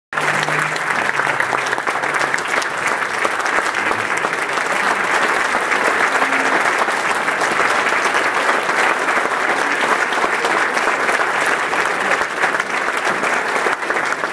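Audience applauding: many people clapping, steady and sustained.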